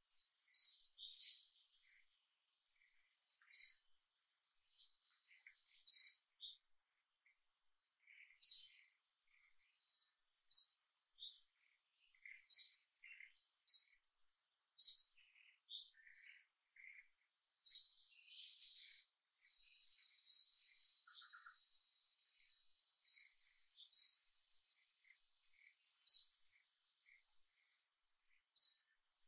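A bird's short, high chirps, one every second or two, with a faint steady high insect whine underneath.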